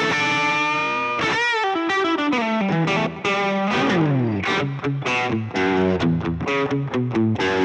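Electric guitar played through the Hotone Ampero II Stage multi-effects on its Marshell 800 amp model, based on the Marshall JCM800, giving an aggressive overdriven tone. A held note opens, a run slides downward about four seconds in, and quick picked notes follow.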